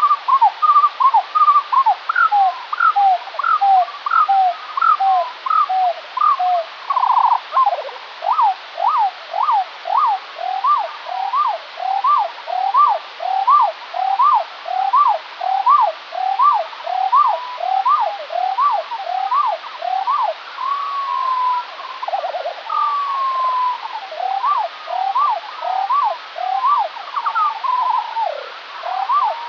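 Skylark song slowed to quarter speed, so it sounds two octaves lower: a long string of swooping notes, about two a second, each sliding up and back down. A few longer gliding and buzzy phrases break in, over a steady hiss.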